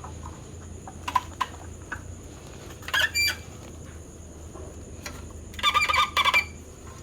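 Chickens clucking in short bursts of calls, once about three seconds in and again in a longer run around six seconds, with a few sharp clicks earlier and a steady low hum underneath.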